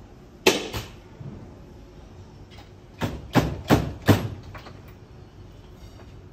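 Five sharp knocks: one about half a second in, then four in quick succession about three to four seconds in.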